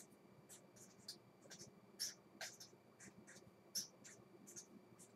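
Pen scratching faintly across paper in short, irregular strokes as a diagram is drawn by hand, with a few louder strokes along the way.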